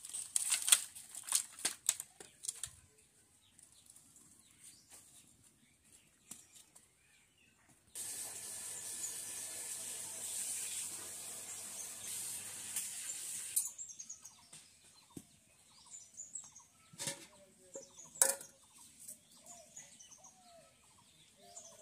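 Dry twigs and leaves crackling and snapping in quick sharp clicks as they are handled and fed into a wood-fired mud stove. A steady hiss follows for about five seconds in the middle. Near the end, birds chirp and there are two sharp knocks.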